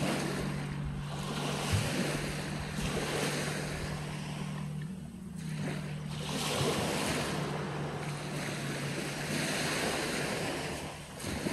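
Small waves breaking and washing up a sandy shore, the rush swelling and fading every few seconds, over a steady low hum.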